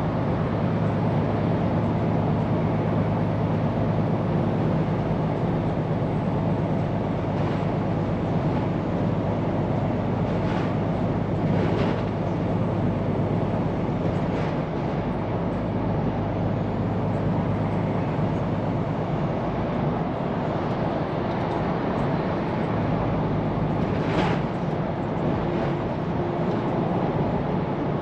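Scania P410 truck under way at steady speed: a constant engine drone with road and tyre noise, and a few faint clicks or rattles now and then.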